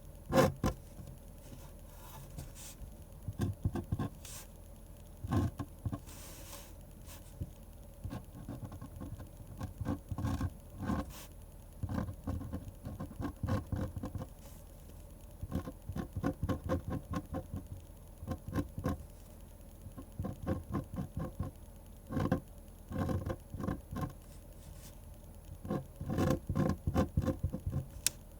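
Pen scratching on paper while drawing: quick clusters of short strokes separated by brief pauses.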